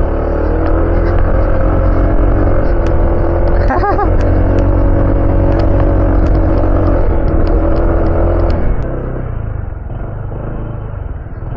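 Honda ADV 160 scooter's single-cylinder engine running steadily under way on a rough dirt trail, with a heavy low ride rumble and scattered sharp clicks. About nine seconds in the rumble drops as the scooter slows.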